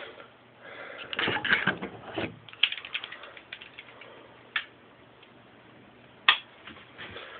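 Metal clicks and rattling as vise grips (locking pliers) are fitted onto a spring hose clamp, busiest in the first few seconds, with a sharp click about six seconds in.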